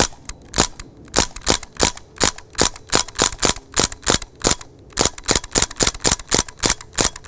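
DPMS / Panther Arms SBR CO2 BB rifle fired rapidly in semi-automatic, one shot per trigger pull: a string of about twenty sharp gas-powered cracks at roughly three a second.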